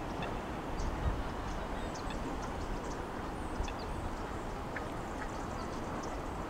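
Waterside ambience: a steady wash of moving water with scattered short, high bird calls.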